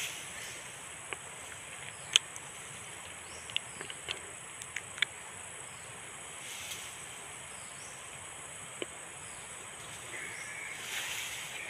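Steady high insect drone over faint hiss, with a handful of sharp clicks scattered through the first half and a brief louder rustle near the end.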